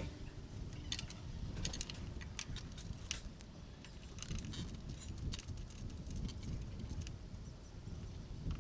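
Small metal parts or tools clinking and jangling as they are handled, with a quick run of clicks in the first few seconds, over a low rumbling handling noise.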